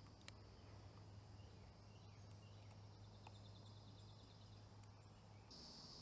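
Near silence: faint outdoor ambience with a low steady hum and a faint high insect buzz that gets a little louder near the end.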